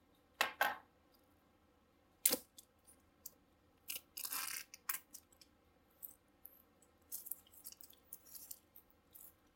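A knife slitting and peeling the plastic wrap off a small product box: scattered crinkles and scrapes, a sharp click about two seconds in, and a longer tearing rasp around four seconds in.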